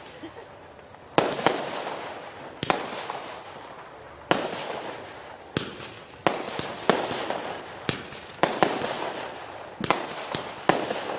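Consumer firework cake firing, a string of about a dozen sharp bangs at uneven intervals, each trailing off as it fades; the shots come thicker in the second half.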